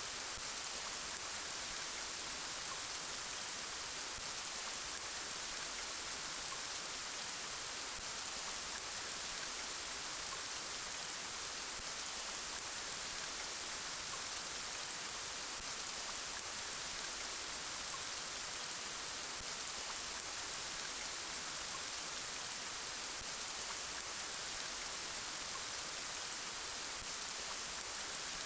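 Steady rain: an even, unbroken hiss, brightest in the high range, with no single drops or other events standing out.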